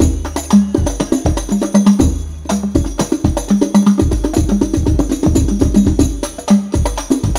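Hadroh percussion music: rebana frame drums and jingling tambourine strokes in a fast, dense rhythm over deep, booming bass-drum hits that come about once a second.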